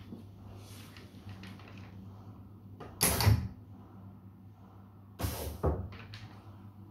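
Pneumatic coffee-bag degassing valve applicator cycling: two short bursts of air about two seconds apart as the heated head presses down onto the bag and lifts again, over a steady low hum. Plastic bag rustles faintly as it is handled.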